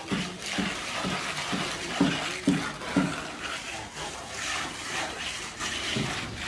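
Steel plastering trowel scraping and smoothing wet cement render on a concrete wall, a wet scraping sound in repeated strokes.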